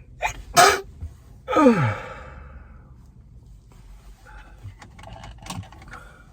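A man with a head cold gives a sharp gasping breath, then a long sigh that falls in pitch, as a sneeze builds but stays stuck. A few faint short sounds follow.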